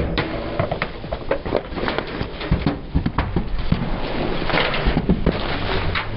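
A car tyre crushing crunchy objects: a dense run of irregular cracks and snaps, with a busier stretch of crackling about four and a half seconds in.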